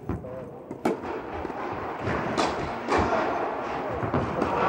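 Tennis rally in an indoor hall: sharp hits of racket on ball and ball bounces. The clearest comes about a second in, with two more later on, each echoing in the hall.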